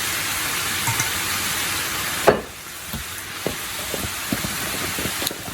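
Stir-fried vegetables sizzling in a pan. About two seconds in there is a sharp knock, after which the sizzle is quieter, with a few light clicks of utensils.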